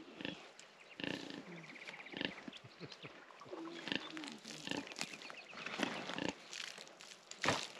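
Kune kune pig giving a few low grunts, with scattered clicks and rustles around it.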